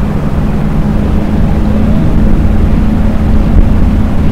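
A small boat's motor running steadily, a constant low hum over a dense rumble.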